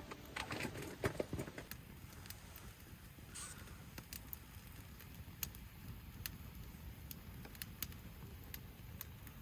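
Faint, irregular crackling and ticking of a burning wood fire, with a brief bird call about three and a half seconds in.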